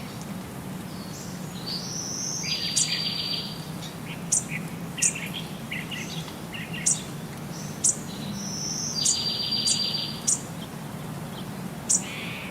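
A bird singing: a song phrase ending in a buzzy trill about two and a half seconds in, repeated about nine seconds in, with short sharp high chirps between. A low steady hum runs underneath.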